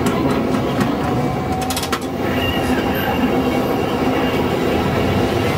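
Old-style electric tram running along its rails with a steady rumble, and a short run of clicks from the wheels and track just before two seconds in.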